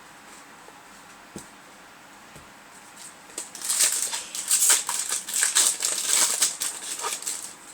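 Foil wrapper of a trading-card booster pack being torn open and crinkled, a dense crackling that starts about three and a half seconds in and runs until just before the end.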